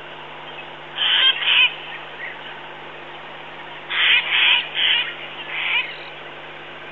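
Fiery-necked nightjar calling: a short two-part phrase about a second in, then a run of four notes about three seconds later.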